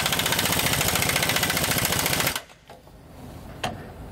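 A 1-inch-drive impact wrench with a 1⅛-inch socket hammers rapidly on an extremely tight axle U-bolt nut to loosen it, for about two and a half seconds, then stops abruptly. A few light clicks follow near the end.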